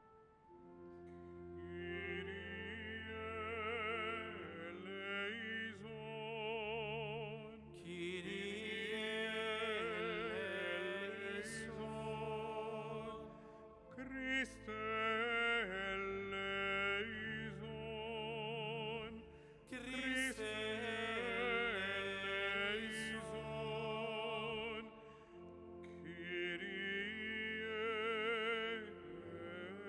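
A solo voice sings a slow liturgical hymn in long, sustained notes with wide vibrato over held low accompaniment chords. The phrases break off briefly about 14 and 20 seconds in.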